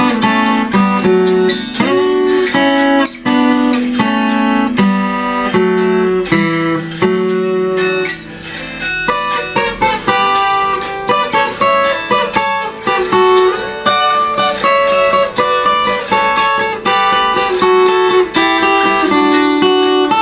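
Acoustic guitar playing a slow, melodic instrumental piece, single plucked notes and chords ringing one after another.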